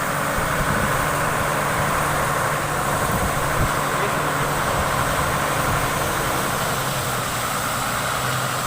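Heavy diesel engine running steadily at low revs, a continuous even hum.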